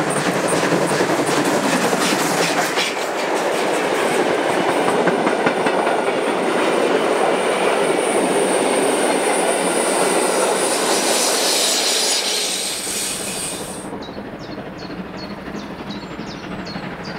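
Steam locomotive with a train of three-axle coaches passing close by, the wheels clattering over the rail joints. About thirteen seconds in, the sound drops to a quieter, more distant train rumble.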